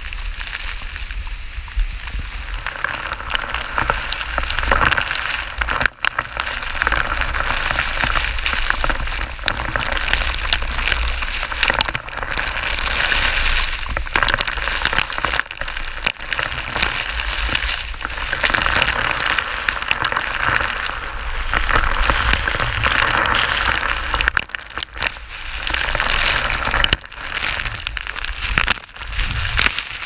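Waterfall spray pelting the camera like heavy rain, over the steady rush of the falling water, with crackling from drops striking the microphone. The sound cuts out for a moment a few times.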